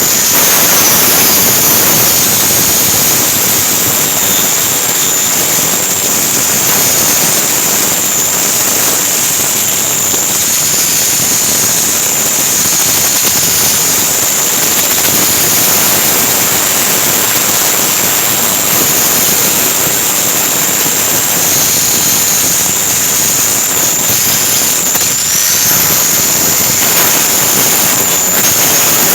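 Angle grinder running continuously under load, its disc grinding through a thick weld on a steel frame cross member: a steady high whine over the harsh rush of disc on steel. Near the end the load eases briefly and the whine climbs back to speed.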